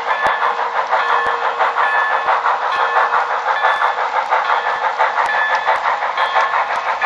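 HO scale Proto 2000 Canadian Pacific 0-8-0 steam switcher's onboard sound system chuffing steadily through its small speaker, a thin, hissy sound with little bass. Occasional sharp clicks from the wheels on the model track come through under it.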